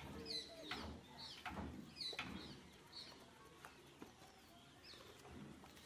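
Faint birds chirping: short, falling chirps about twice a second, thinning out after the first few seconds.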